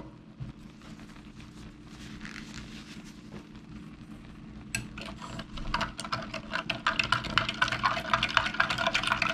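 A plastic spoon stirring powdered lemon-lime drink mix into water in a glass, with rapid clinks and scrapes against the glass starting about five seconds in.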